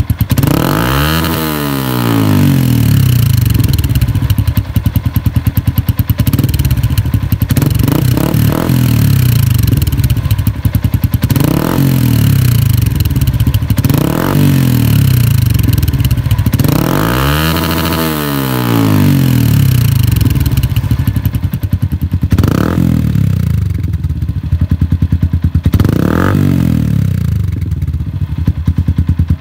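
Yamaha Sniper 150's single-cylinder four-stroke engine, breathing through an aftermarket Akrapovic exhaust canister. It idles and is revved in short blips about eight times, each rising sharply and dropping back to idle.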